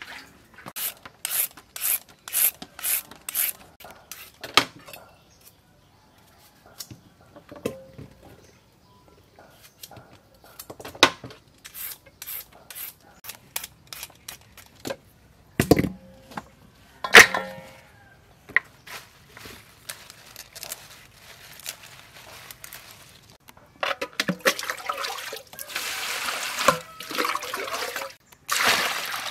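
Food-prep handling sounds: a run of quick, light clicks and taps, then a thump and a ringing clatter like a metal bowl being set down. For the last few seconds, water pours and splashes into a clay water jar.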